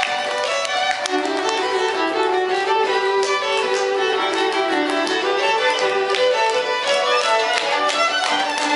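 Two violins playing a duet: from about a second in, one holds longer lower notes beneath quicker, higher notes from the other.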